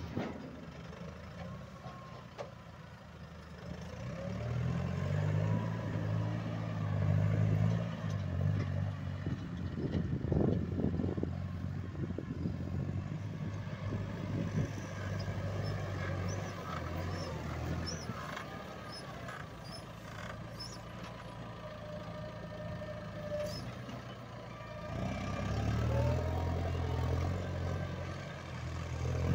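Massey Ferguson 5455 tractor's four-cylinder diesel engine running under working load, rising in pitch and loudness about a sixth of the way in, settling to a steadier note through the middle, and rising again near the end.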